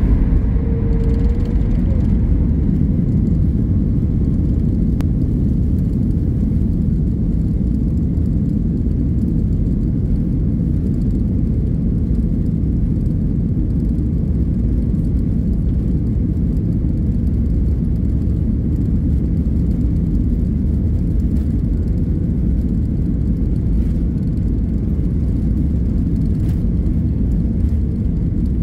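Boeing 737 airliner's jet engines and rolling airframe heard from inside the cabin over the wing: a steady, loud low rumble as the plane moves along the runway.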